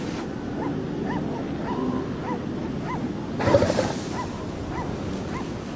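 Elephant seals calling: a string of short, high yelps a few times a second over the wash of surf, with a louder rough outburst about three and a half seconds in.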